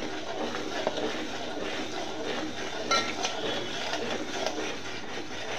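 Sugar syrup boiling hard in a metal pot while a metal spoon stirs it, clicking and scraping against the pot, with one sharper ringing clink about three seconds in. The syrup is still short of the thread stage.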